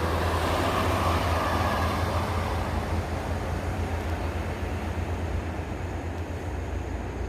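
Heavy road vehicle running: a steady low engine rumble under road noise that fades over the first few seconds as the vehicle moves away.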